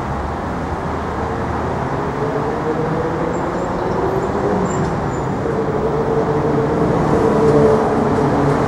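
City street traffic, with a large vehicle's engine running close by; its low hum rises slightly in pitch a few seconds in and grows gradually louder.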